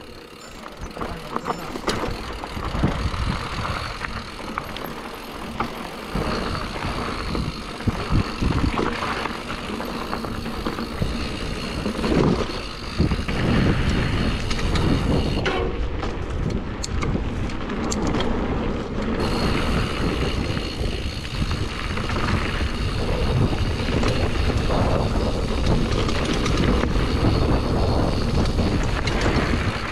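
Mountain bike riding fast down a rough, rocky trail: tyre noise on dirt and stones with frequent knocks and rattles from the bike, and wind buffeting the microphone.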